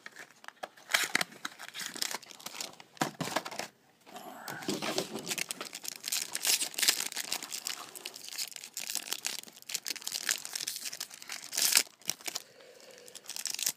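Plastic wrapping of a trading-card pack crinkling and tearing as it is opened and handled, in irregular crackles.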